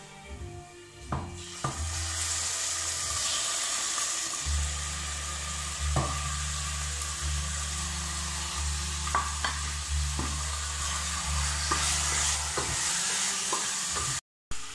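Raw chicken pieces sizzling in hot oil with browned onion and garlic in a steel pot. The sizzle starts about two seconds in. A wooden spoon knocks and scrapes against the plate and pot as the chicken is pushed in and stirred.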